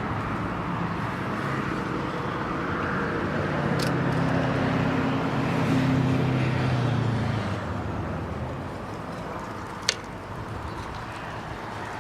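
Motor-vehicle noise: a steady background of traffic with an engine hum that swells for a few seconds mid-way and then fades, like a vehicle going by. Two short sharp clicks, one about four seconds in and a louder one near ten seconds.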